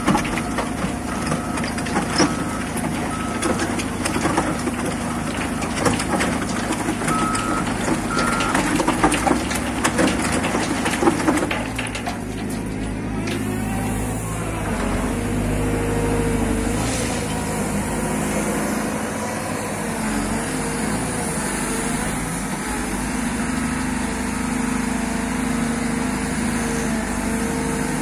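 Excavator-mounted crusher bucket on a Cat 316F running, rock crunching in its jaws and crushed stone pouring out into a steel dump bed with a dense crackle over the diesel engine. About 12 seconds in this gives way to a steadier engine sound with a wavering hydraulic whine as the excavator works the bucket. Short beeps of a reversing alarm sound in a few bursts.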